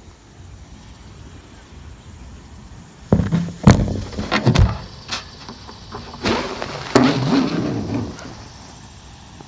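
Window air conditioner fan running with a steady hum, while its front panel and filter grille are handled and put back in place: a run of loud plastic knocks and clattering from about three seconds in to near the end.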